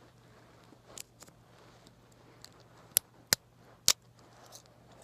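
Sharp metallic clicks from a TSA combination luggage lock being handled: a few faint ticks, then three loud clicks in quick succession about three seconds in.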